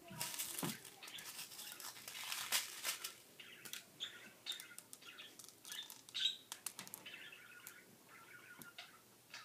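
Tiny seed beads sprinkled by hand onto a wooden flower on paper: a dense patter and rustle for the first few seconds, then scattered small clicks and rustles as fingers press and move the beads.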